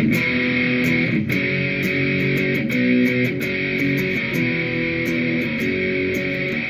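Electric guitar, an Epiphone Les Paul Prophecy fitted with Gibson 61R&T pickups, played through an amp on the neck pickup with its volume rolled up for a hot tone: picked chords and notes that ring out and change every second or so.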